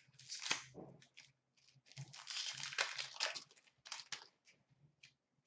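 A stack of hockey trading cards being shuffled and slid against one another by hand, in several short rustling, scraping bursts. The longest runs from about two seconds in to three and a half.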